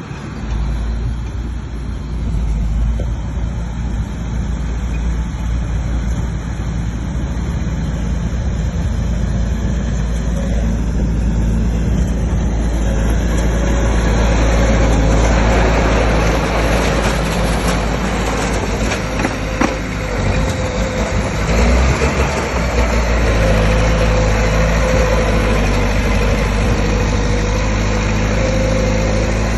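Bulldozer's diesel engine running steadily, then growing louder and rougher about halfway through, with a noisy rush over the engine note.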